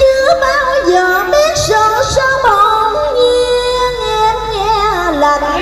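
A woman singing a Vietnamese cải lương (reformed opera) melody with a wavering vibrato and sliding notes, accompanied by a live band with guitar.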